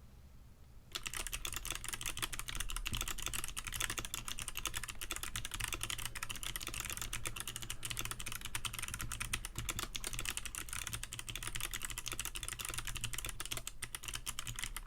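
Rapid random typing on a 60% mechanical keyboard with Kailh Box Navy clicky switches, stock unlubed stabilizers, TaiHao ABS keycaps and a cheap plastic case on a bare hard desk: a dense, continuous stream of sharp clicks starting about a second in.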